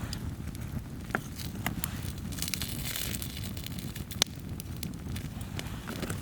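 Wood campfire burning on snow: a low steady rumble of the flames with scattered sharp pops of crackling firewood, the loudest about four seconds in. A soft hiss in the middle is melting snow.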